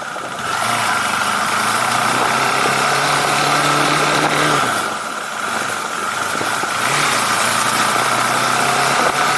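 KTM 390 Adventure's single-cylinder engine pulling while riding, over steady wind noise. It eases off about five seconds in and picks up again a couple of seconds later.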